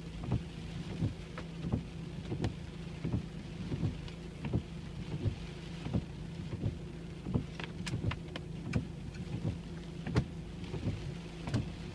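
Rain on a car heard from inside the cabin over a steady low hum of the car. A soft, regular thump comes about every 0.7 s, and sharper drops tick on the body now and then.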